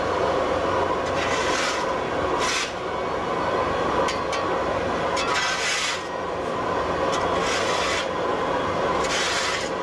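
Steady drone of shop machinery with a constant hum, over which a long-handled tool scrapes across a steel machine table in five rasping strokes of about half a second each, with a few light metal clinks between them.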